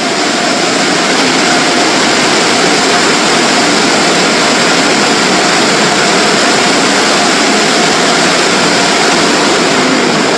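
Automatic car wash running: a loud, steady rushing noise that swells slightly at the start and then holds level.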